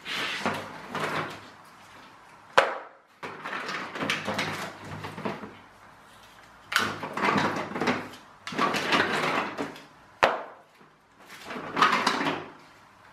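Hard plastic marble run track pieces clattering and knocking together as they are handled and set down on a table. The sound comes in bursts of rattling a second or so long, with two sharp clacks standing out, the loudest about two and a half seconds in.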